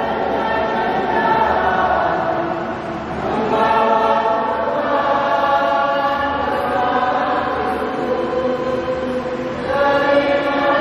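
Choir singing a hymn in long held phrases, with a short break about three seconds in and a louder new phrase starting near the end.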